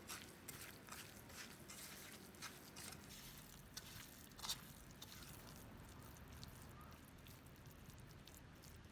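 Faint food-preparation sounds: a scatter of soft, irregular clicks and taps over the first few seconds, the sharpest about four and a half seconds in, then quiet handling.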